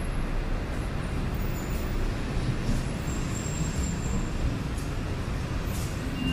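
Steady rumble of city road traffic, with vehicles passing continuously.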